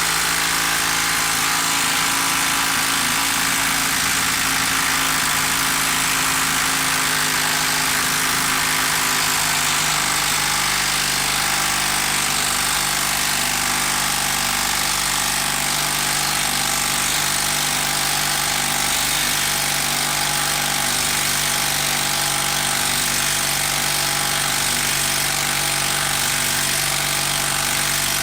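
Milwaukee M12 brushed 12-volt subcompact impact driver hammering steadily without a break as it backs a long Timberlok structural screw out of wood. The pitch of the motor and impacts shifts slightly about ten seconds in.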